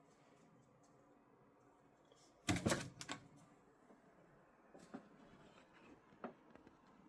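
Small hard objects being handled: a quick cluster of clicks and knocks about two and a half seconds in, then a couple of single clicks.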